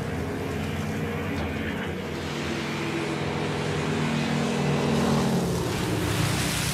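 Engine of a small propeller plane droning as it flies low past, its pitch falling as it goes by, with a rush of noise near the end.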